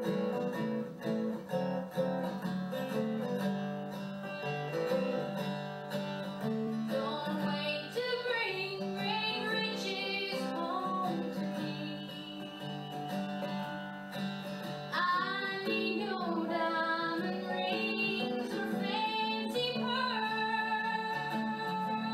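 Acoustic guitar playing a country song, joined by a woman singing from about seven seconds in.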